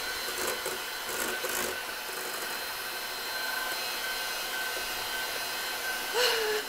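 Electric hand mixer running steadily, its beaters whipping egg whites and sugar in a stainless steel bowl, a steady motor whine over the whisking noise. The whites are still being beaten toward stiff peaks. A brief louder sound comes near the end.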